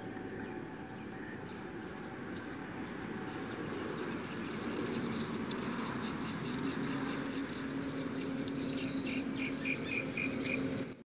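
Outdoor field ambience dominated by steady high-pitched insect chirring, like crickets. A low steady hum comes in about halfway through, and near the end a quick run of short repeated chirps is heard.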